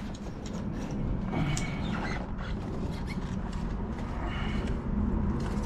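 Engine parts being handled and fitted by hand on top of a V8 engine: scattered small clicks, taps and scrapes over a steady low background rumble.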